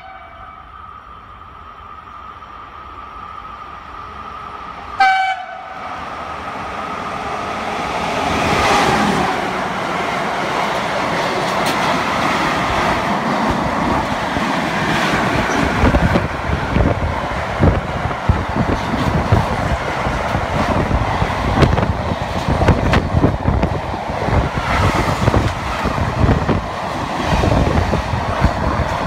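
Italian E656 electric locomotive gives a short horn blast about five seconds in, then passes at speed hauling a long train of empty flat wagons. The running noise builds as it comes by, and then the wagons' wheels rattle and knock over the rail joints for the rest of the pass.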